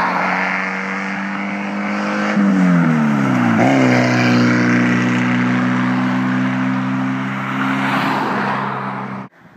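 Classic Mini MPi's 1.3-litre A-series four-cylinder running with no exhaust fitted, loud and raw as the car drives past. The engine note drops steeply about two and a half seconds in, then holds a steady lower drone before cutting off abruptly near the end.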